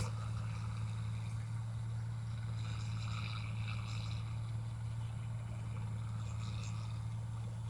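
Engine of a paddy (rice) machine running at a constant speed, a steady low hum.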